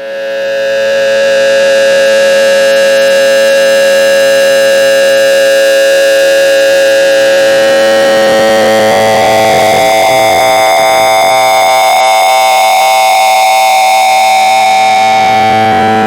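A loud, harsh electronic tone, many pitches sounding together, fading in quickly and then held steady. About halfway through it shifts to a higher, wavering set of tones.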